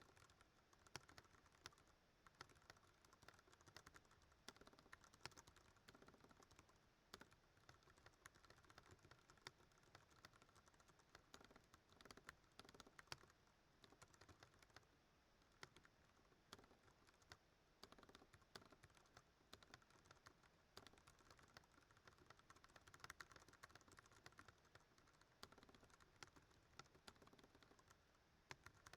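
Continuous rapid typing on a Ducky One 2 Mini mechanical keyboard with Cherry MX Brown switches: a dense, uneven run of faint key clicks.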